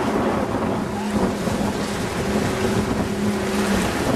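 Mullet fishing boat's motor running steadily under way, a constant hum over rushing water, with wind buffeting the microphone.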